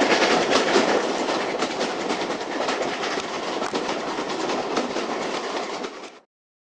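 Passenger carriage of a steam-hauled train running at speed, heard from an open window: steady rushing running noise with wheels clicking over rail joints. The sound drops away abruptly about six seconds in.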